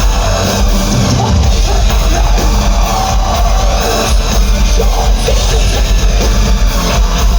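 Heavy metal band playing live at full volume, with a drum kit, dense and continuous.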